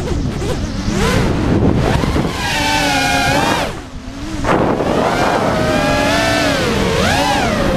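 Brushless motors and tri-blade Nazgul 5140 propellers of a 5-inch FPV freestyle quadcopter, heard from the onboard camera, whining with pitch rising and falling as the throttle changes. About four seconds in the throttle drops and the whine briefly sinks and fades, then comes back hard.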